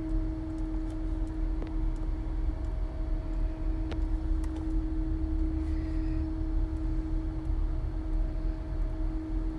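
Steady low rumble of street traffic under a constant pitched hum, with a few faint clicks.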